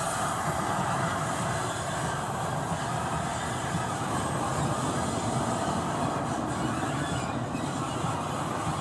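Steam locomotive running along the line, a steady rumble of train and wheels on the rails with no distinct chuffs.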